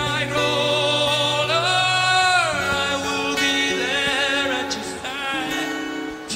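A slow live ballad: a male lead voice sings long held notes with vibrato, gliding between them, over a plucked acoustic guitar.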